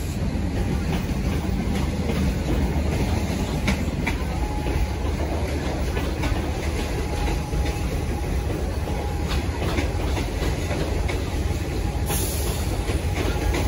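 Metro suburban electric train moving out along the adjacent platform track: a steady low rumble of wheels and motors with irregular clicks as the wheels cross rail joints and a faint steady whine. A brief high hiss sounds near the end.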